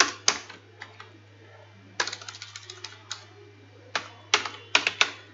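Typing on a computer keyboard: scattered keystrokes, with a quick run of several about two seconds in and a few more near the end.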